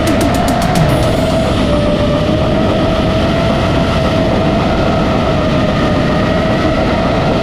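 FPV racing quadcopter's four brushless motors and props (SpeedyBee Master 5, Gemfan 51466 props) whining steadily in cruise, the pitch wavering only slightly, over heavy wind rumble on the onboard camera's microphone.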